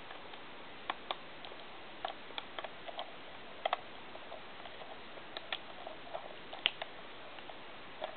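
Irregular small clicks and taps from a Yashica Kyocera T2 35mm compact camera being handled while its battery is fitted.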